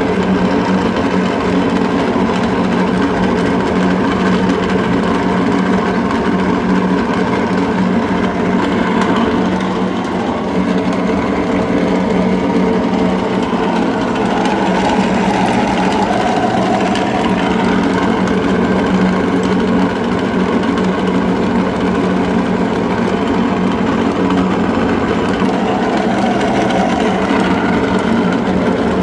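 Electric meat grinder running steadily as it grinds cookies, its motor giving a continuous hum.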